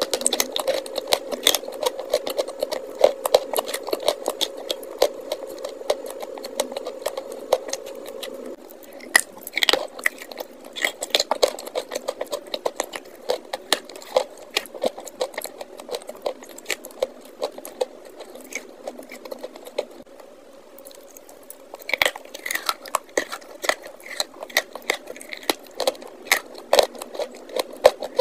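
Close-miked crunching of a block of chalk being bitten and chewed: a dense run of crisp crackles and clicks, with clusters of louder crunches now and then.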